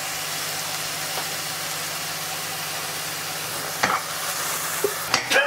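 Onions frying in a saucepan with a steady sizzle, stirred with a wooden spoon, with a steady low hum underneath and a couple of short knocks near the end.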